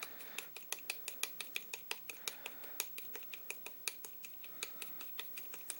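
Fine-tipped soldering iron tapping lightly and quickly into a plastic pistol grip panel while stippling it, a steady run of small sharp clicks at about five a second.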